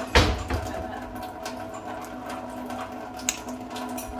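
Japanese alkaline water ionizer running with a steady hum, with a loud knock just after the start and a sharp click about three seconds in.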